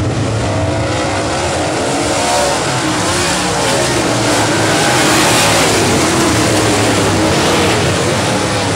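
A pack of dirt late model race cars' V8 engines running at racing speed, many engine notes rising and falling over one another. The sound swells to its loudest about five seconds in.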